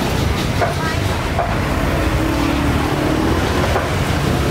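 Steady road traffic noise, a continuous low rumble of passing vehicles, with faint voices mixed in.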